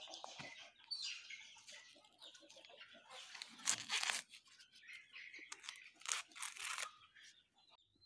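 Ears of corn being husked by hand: irregular tearing and crunching as the green husks are ripped off the cobs, with the loudest rips about four and six seconds in.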